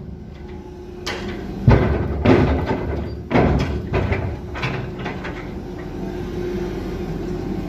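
Clamshell grab bucket working in iron ore in a barge hold: a run of sharp metallic clanks and thuds, about seven in four seconds, as the steel jaws and rigging knock while the grab bites into the ore. After that comes a steady drone of crane machinery.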